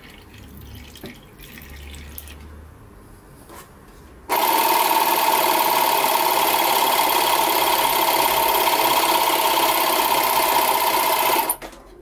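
A small 12-volt tire-inflator compressor switches on about four seconds in, runs steadily for about seven seconds, then cuts off suddenly. It is re-pressurising the can of fuel and injector cleaner that feeds the injector rail after the pressure ran out.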